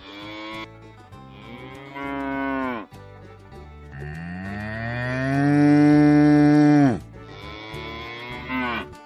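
Cattle mooing: four separate moos, the longest and loudest about halfway through, rising in pitch, then holding and dropping off abruptly at its end.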